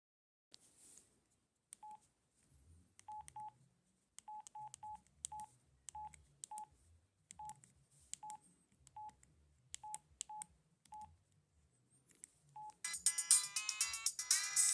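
Samsung SCH-U410 cell phone keypad beeping: about fifteen short single-pitch key beeps, each with a faint click, at an uneven pace as buttons are pressed through the menu. About two seconds before the end a ringtone starts playing loudly from the phone's speaker.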